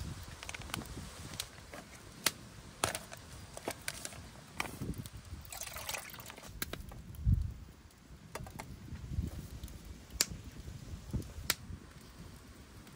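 Water sloshing and trickling in a cooking pot while pasta is boiled, with a short splash about six seconds in. Scattered sharp clicks run throughout, and a dull knock comes about seven seconds in.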